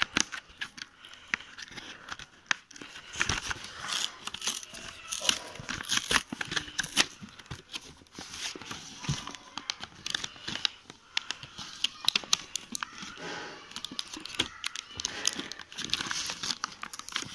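Clear plastic blister pack on its card backing crinkling and crackling as it is pried and torn open by hand, with many irregular sharp snaps.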